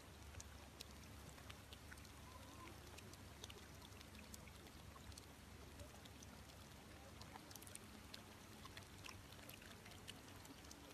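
Faint water sounds: many small irregular splashes and drips over a low steady hiss.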